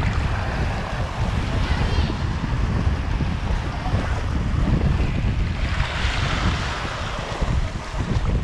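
Wind buffeting the microphone over the wash of shallow sea surf, with a louder rush of water about six seconds in.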